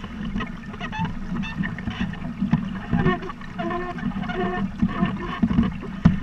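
Water gurgling and splashing against the hull of a Buccaneer 18 sailboat under way, over a steady low rumble, with a few louder splashes near the end.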